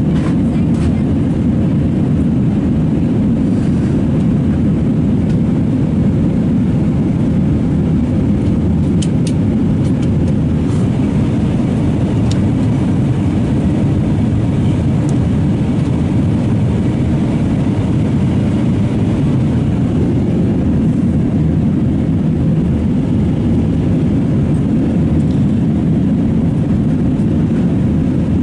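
Cabin noise of an Airbus A320-232 in flight, heard from a window seat: a steady low rumble of its IAE V2500 engines and the air rushing past the fuselage. A few faint ticks come about nine to twelve seconds in.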